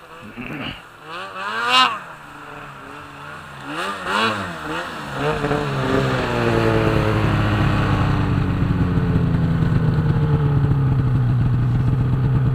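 Snowmobile engine revving in short rising-and-falling bursts as the sled comes up through deep snow. It then passes close and runs loud and steady, its note slowly sinking in pitch.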